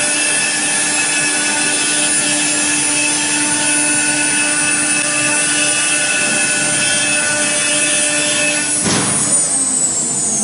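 Omni CNC router running its spindle and cutting in auto mode, a steady multi-tone whine over a noisy hiss. About nine seconds in the sound changes suddenly and a falling whine follows, as the cut ends near the finish of the program.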